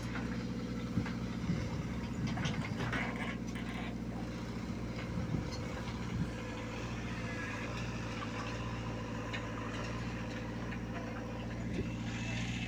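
Diesel engine running steadily at an even idle, a low constant drone, with a few light knocks in the first few seconds.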